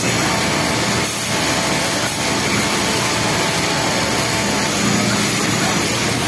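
Steady, dense machine noise of industrial flatlock sewing machines running on a garment workshop floor, with a faint steady whine through it.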